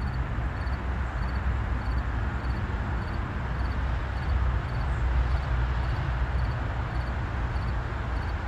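Steady outdoor background rumble, heaviest in the low end, with a faint high insect chirp repeating evenly, somewhat under twice a second.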